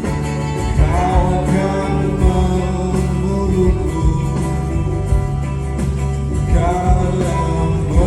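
A live band plays with bass, drums and guitar, and a voice sings a gliding line about a second in and again near the end.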